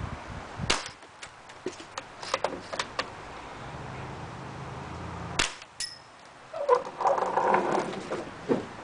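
UTG Type 96 spring-piston airsoft sniper rifle: a few light clicks, then, about five seconds in, one sharp shot crack. A moment later comes a short metallic ding as the BB strikes a can, followed by a stretch of rustling.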